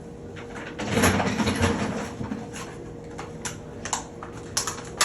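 Small parts and tools handled at a shower valve: a scraping rustle about a second in, then a run of short, sharp clicks, over a faint steady hum.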